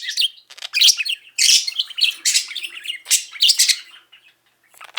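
Budgerigar chattering in quick, high-pitched warbling bursts, with a short pause about four seconds in.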